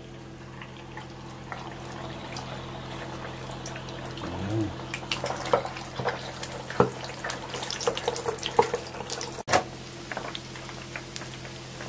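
Pork belly deep-frying in an electric deep fryer: the hot oil hisses and crackles with many sharp pops, growing busier from about four seconds in. A steady low hum runs underneath.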